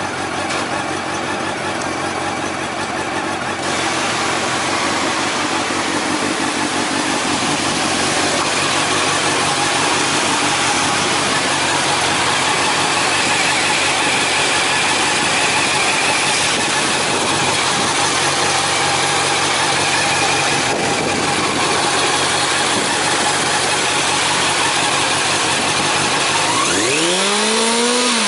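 Motorcycle engine running steadily at idle through an aftermarket Yamamoto Racing exhaust silencer, with one rev near the end that rises and falls back.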